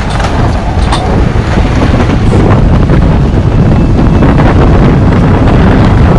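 Strong wind buffeting the microphone, loudest in the low end, over the rush of wind and breaking waves past a sailing yacht sailing hard in a rough sea.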